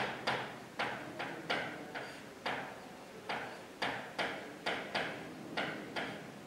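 Marker pen writing on a whiteboard: a run of short taps and scratchy strokes, about two a second.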